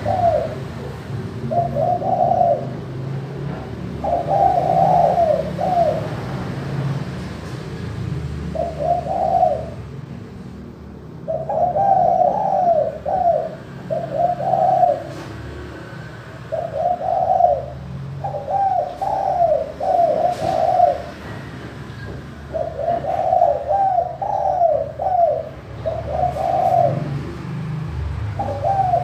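Spotted dove (tekukur) cooing: a clear, repeated coo phrase about every two seconds, with a short break about a third of the way in.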